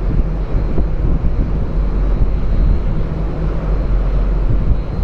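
Steady low drone of a large car ferry's engines under way, with wind buffeting the microphone.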